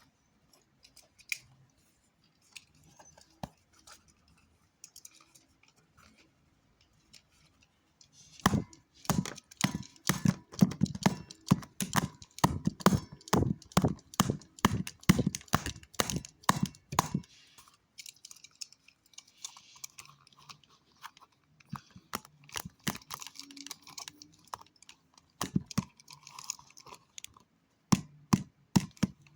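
A fast run of sharp clicks and knocks, about three or four a second, starting about eight seconds in and lasting some nine seconds, with scattered single clicks before and after: hard objects tapping and being handled.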